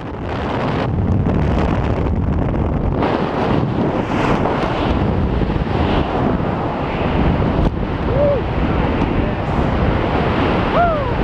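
Loud, steady rush of wind buffeting the camera microphone during a tandem skydive.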